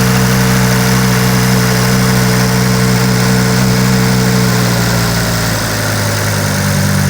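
2006 Volvo XC70's engine running steadily at a cold fast idle, sounding smooth, before it drops toward its normal idle. The car has set a P0016 cam-timing code, which the owner puts down to the intake cam.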